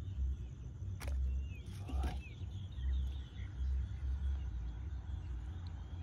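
Wind buffeting the microphone in gusts, a low rumble that rises and falls. There is a sharp click about a second in and a few faint high chirps.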